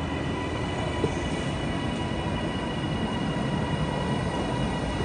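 Train at a railway station: a steady running noise with a steady high whine over it, and a single sharp knock about a second in.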